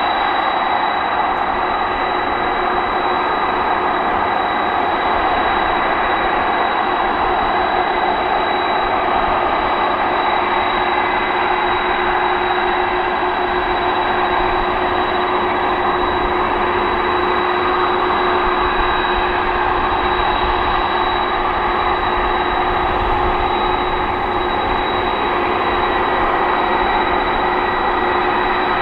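Boeing 747-400ER freighter's four turbofan engines running at taxi idle: a steady rushing jet noise with a constant high whistle.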